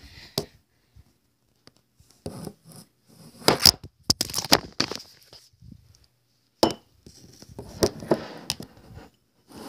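Handling noises from slime-making materials: irregular crinkling and scraping with sharp clicks, coming in bunches with short quiet gaps.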